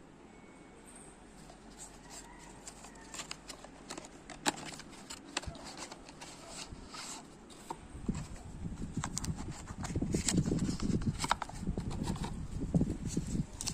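Hands handling an earbuds box and its packaging: scattered sharp clicks and taps, then louder rustling and handling noise from about eight seconds in.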